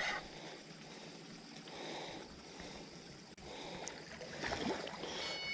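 Faint outdoor lakeside ambience: a low, even background noise with a faint, steady high-pitched hum above it. A rustle of handling noise rises near the end.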